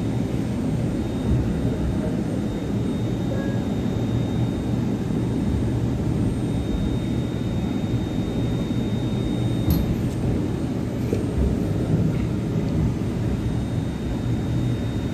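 Delhi Metro Pink Line train running along the elevated track, heard from inside the carriage: a steady low rumble with a thin, steady high tone above it. There is one sharp click about ten seconds in.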